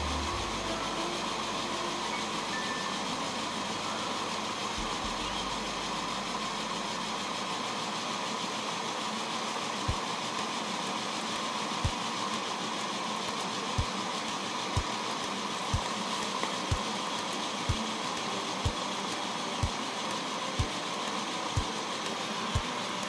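Accucraft Ruby #5 live steam locomotive running in place on rollers: a steady hiss of steam over its turning running gear. From about ten seconds in, a short low thump comes about once a second.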